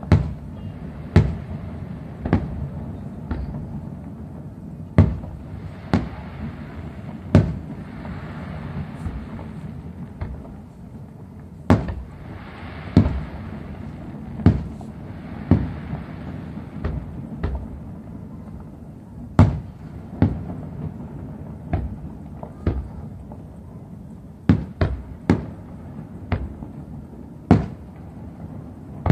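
Aerial firework shells bursting in about twenty sharp bangs at irregular intervals, one every second or two, over a steady low rumble. Two stretches of crackling hiss from the bursting stars come partway through.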